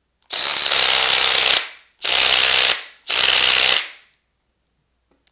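Power impact wrench hammering in three bursts, a long one and then two short ones, running a nut on a hydraulic pump gear up to 37 foot-pounds.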